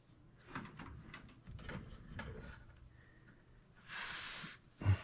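Handling noise at a gas furnace: scattered clicks and knocks, a brief scraping slide about four seconds in, then a low thump near the end.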